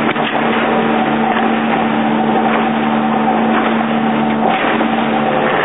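A small fishing boat under way at speed on open sea chop: the engine holds a steady drone under loud rushing wind and water. A few faint knocks come through.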